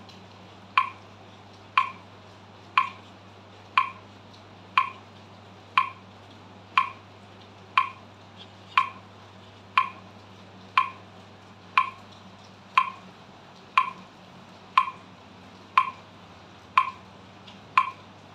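Metronome clicking steadily at 60 beats per minute, one sharp click each second, over a faint steady low hum.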